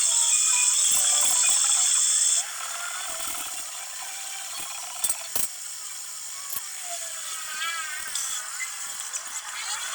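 Background music for the first couple of seconds, cutting off abruptly. Then metalworking shop sounds, most likely from the lathe being worked: a steady mechanical rattle with a few sharp clicks.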